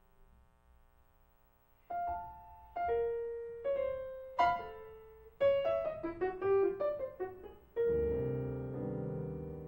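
Grand piano played solo. After a near-silent pause, single notes and short figures begin about two seconds in and quicken into a brief flurry. A fuller chord with low notes then sounds near the end and rings on, fading.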